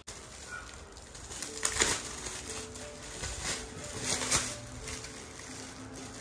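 Soft background music with short held notes, with a few brief rustling noises of gift wrapping being opened; the loudest come about two seconds in and again around four seconds.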